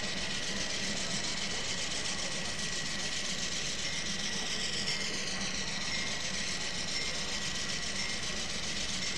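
Diesel locomotive engine running steadily, a constant low rumble with a thin steady high whine over it.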